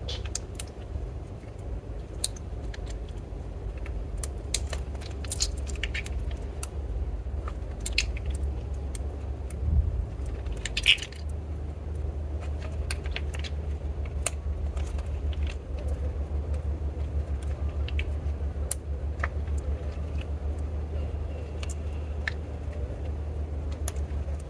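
Slime being squished and mixed by hand, with scattered sharp clicks and crackling pops, over a steady low hum.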